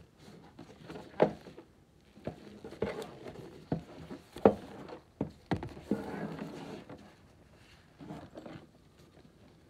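A cardboard board-game box being handled with nitrile-gloved hands: irregular knocks and taps on the box, the sharpest about a second and four and a half seconds in. Between them come rubbing and rustling of gloves against the box and the plastic tablecloth, longest around six to seven seconds in.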